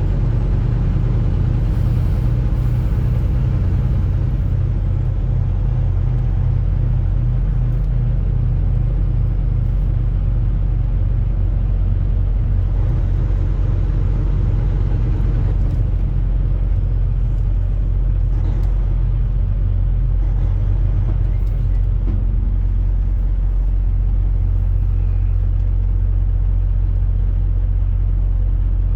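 Truck driving: a steady, unbroken low engine and road rumble.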